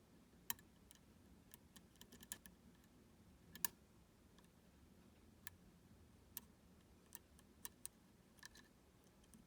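Faint, irregular metallic clicks of a lock pick and tension wrench working the pin stacks of a U-Shin Showa NX high-pin-count lock, with the sharpest click a little over three and a half seconds in.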